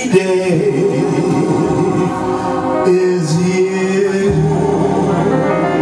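A man singing long held notes into a microphone over jazz piano accompaniment, the pitch shifting down about three and four seconds in.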